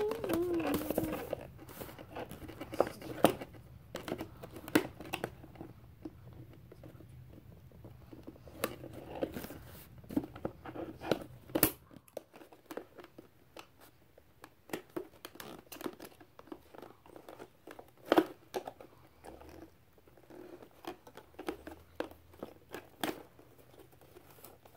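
Toy packaging of plastic and cardboard being pulled and worked at by hand: irregular crinkling, crackling and sharp clicks. A low background hum stops about halfway through.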